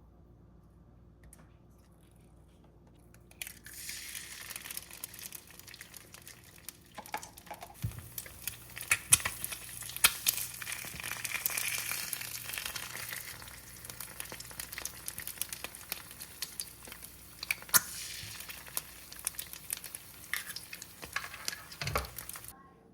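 Food sizzling in a hot pan, with many sharp crackles and pops over a steady hiss. It starts abruptly about three seconds in and stops suddenly just before the end.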